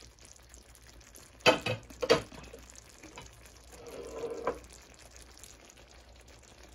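Pork afritada simmering faintly in a pan, with two sharp clacks of kitchenware about a second and a half and two seconds in, and a softer knock a little later.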